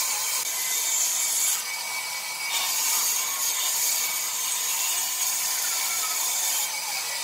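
Band saw cutting through a wooden board as it is fed by hand: a steady, high-pitched hiss of the blade in the wood, which eases briefly about two seconds in.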